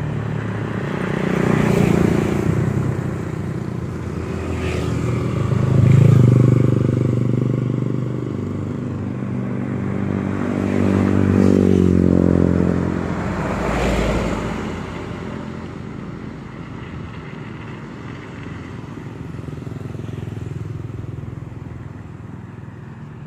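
Motor vehicles passing close by, their engines swelling and fading several times. The loudest pass comes about six seconds in and another around twelve to fourteen seconds, with a change in pitch as it goes by, before the engine noise dies down.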